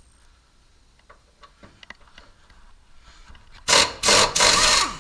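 An impact wrench hammering on a bolt in three quick bursts near the end, with a few faint clicks before them. The bolt shears.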